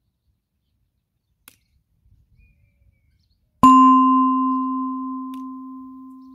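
A single bell-like ding that rings out and fades slowly over about three seconds: the notification-bell sound effect of a subscribe-button animation. A faint mouse-style click comes before it.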